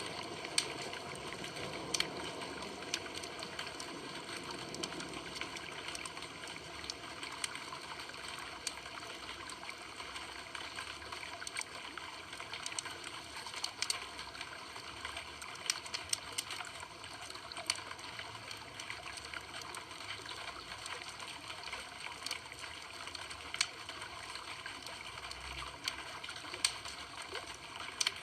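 Campfire burning: a steady hiss with frequent sharp crackles and pops scattered irregularly throughout.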